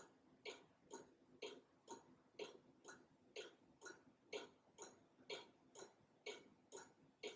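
Black Forest cuckoo clock ticking faintly and steadily, about two ticks a second, from its pendulum movement.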